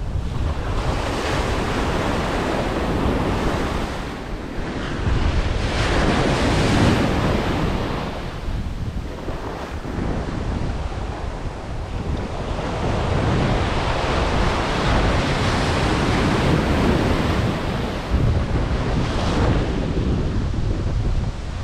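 Ocean surf breaking on the beach in surges that swell and fade every few seconds, with gusty wind buffeting the microphone in a constant low rumble.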